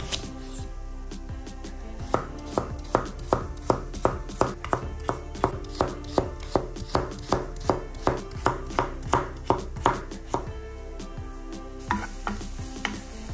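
Kitchen knife chopping vegetables on a cutting board in a steady rhythm of about three strokes a second, starting about two seconds in and stopping a few seconds before the end.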